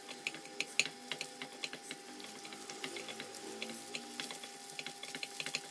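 Wooden spatula tapping and scraping against a nonstick frying pan while stirring scrambled eggs, in irregular light clicks several times a second over a faint steady tone.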